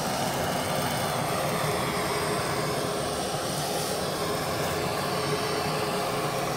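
Kitchen blowtorch burning with a steady, even roar as its flame browns slices of cheese.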